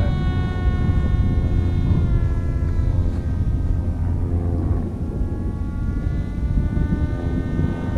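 Hobbyking Teksumo RC delta wing's electric motor and propeller whining overhead at part throttle, mostly holding one pitch with slight dips, over a low rumble.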